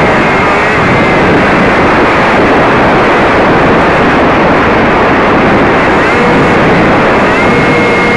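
Wind rushing over an RC plane's onboard camera microphone in flight, with the plane's motor and propeller whine dropping away at the start and then rising back to a steady pitch about six seconds in as the throttle opens.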